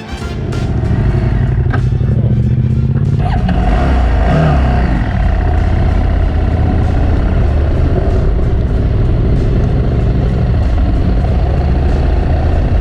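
Adventure motorcycle engine running steadily while riding, its note changing about three seconds in.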